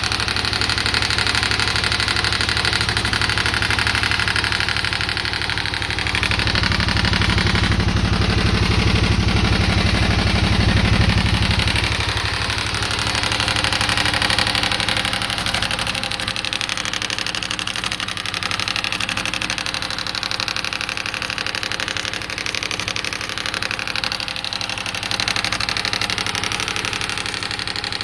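Harley-Davidson Sportster S's liquid-cooled V-twin engine running, making what its owner calls funny noises. A deeper, stronger rumble comes in about six seconds in and drops away about twelve seconds in.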